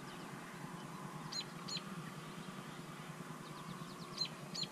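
A bird calling twice, each time two short high notes in quick succession, over a faint steady background hum.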